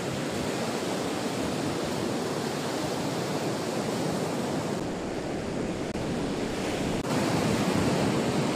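Ocean surf breaking and washing up the beach in a steady rush, a little louder about seven seconds in.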